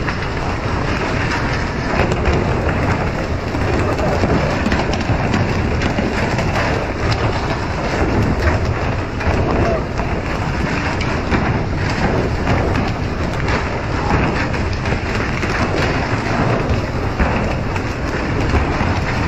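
Continuous rushing hiss and splash of seawater spray jetting from a pole-and-line fishing boat's hull sprinklers onto the sea, mixed with wind and water noise along the hull, with many small splashes and knocks.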